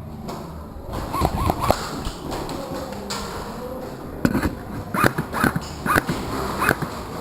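Airsoft gunfire in short sharp cracks: three quick shots about a second in, then five more shots spaced roughly half a second apart from about four seconds in.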